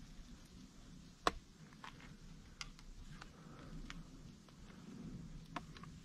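Quiet snowstorm ambience: a low steady rumble of wind with faint, irregular light ticks and clicks, one sharper click about a second in.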